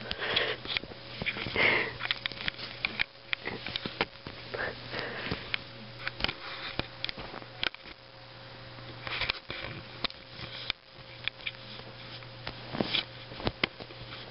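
A kitten sniffing with its nose right at the microphone, in short quick puffs of breath, among many small clicks and rustles from its paws and the handled camera, over a faint steady hum.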